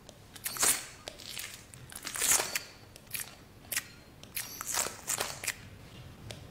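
Irregular crunching and crackling: about ten short bursts of uneven length, the loudest just before one second in and just after two seconds in.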